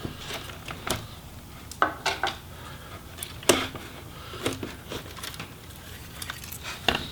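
Scattered light clicks and knocks of hard laptop parts being handled while the last hinge screws are taken out and the palm rest is lifted away from the display assembly.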